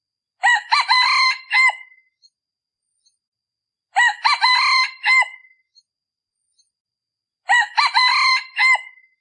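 A male decoy rooster, the kind used to lure wild junglefowl, crowing three times about three and a half seconds apart. Each crow is short, about a second and a half, and there is silence between crows.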